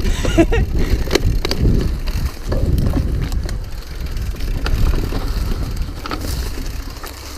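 Cross-country mountain bike riding fast down a dirt forest trail: a steady rumble from the tyres and riding, with frequent sharp knocks and rattles from the bike over bumps.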